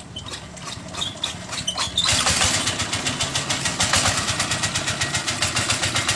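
Single-cylinder Dongfeng diesel engine of a homemade two-wheeler running with a rapid pulsing beat. It turns much louder suddenly about two seconds in.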